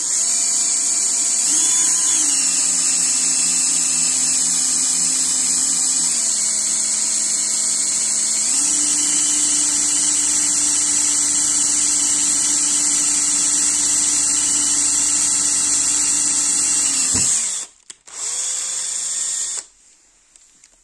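Electric drill boring a hole through a black metal heatsink panel, its motor whine shifting in pitch a few times. Near the end it winds down and stops, then spins again briefly for a second or so.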